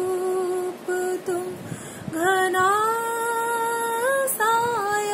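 A woman singing a Hindi ghazal, drawing out long held notes; the voice breaks off briefly a little before two seconds in, then holds another long note that rises slightly near the end.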